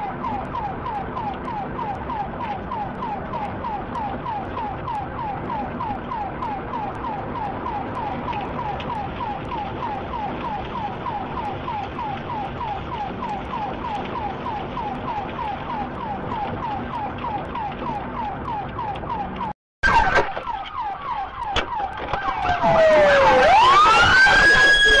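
Police car siren in fast yelp mode, about three to four rising chirps a second over road noise, heard from inside the pursuing patrol car. About twenty seconds in the sound cuts out briefly, then a louder siren wail sweeps down and back up near the end.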